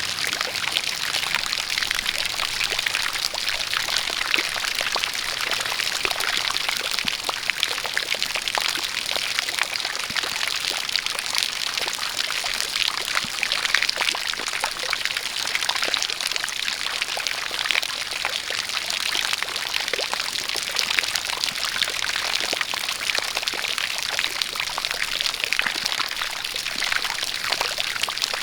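A steady stream of water pouring and splashing, with rain pattering.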